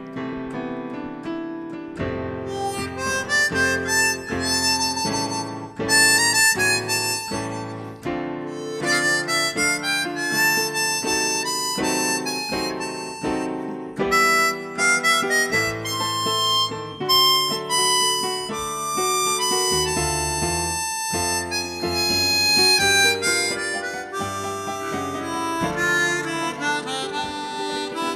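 Harmonica playing an instrumental melody over chord accompaniment, with notes changing steadily through the passage.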